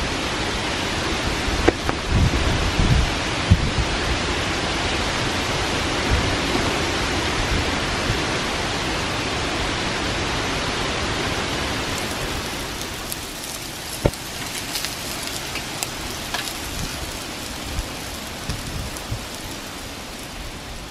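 Gusty wind rushing through the leaves of tall trees, a loud steady rush with low buffeting in the first few seconds. About halfway through it eases a little and many sharp little ticks and crackles come in.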